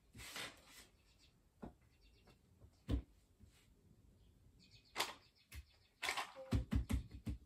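Scattered handling noises: short clicks and knocks with brief rustles, the busiest cluster near the end.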